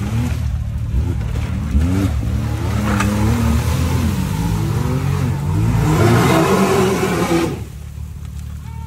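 UTV engine revving up and down, its pitch rising and falling repeatedly, with a rush of noise that builds before the sound drops off sharply near the end.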